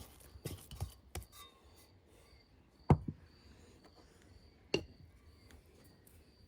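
A few light knocks in the first second, then two sharp single knocks about three and five seconds in, from hands-on kitchen work. Underneath, a cricket chirps steadily about twice a second.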